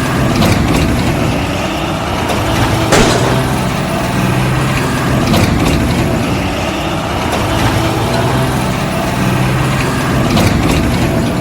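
A heavy engine running steadily with a low, even hum, broken by a few sharp clicks or knocks, the strongest about three seconds in.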